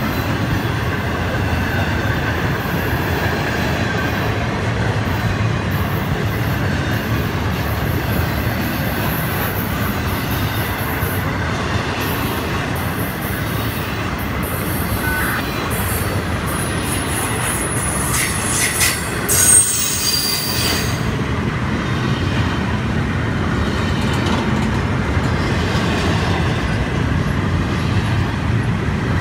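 Florida East Coast Railway intermodal freight train rolling past close by: steady noise of steel wheels on rail as container well cars and trailer-carrying flatcars go by. About two-thirds of the way through there is a brief high-pitched wheel squeal.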